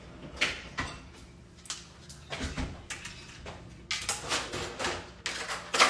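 Kitchen handling sounds: a string of irregular knocks and clunks with short rustles, as of things being moved about on a counter, with a denser cluster near the end.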